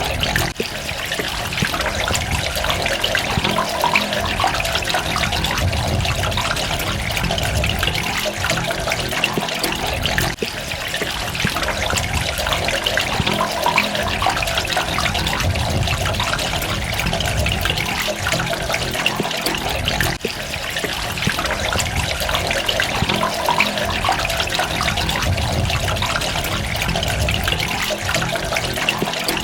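Running water trickling and splashing in a steady, dense rush, with brief dips in level about every ten seconds.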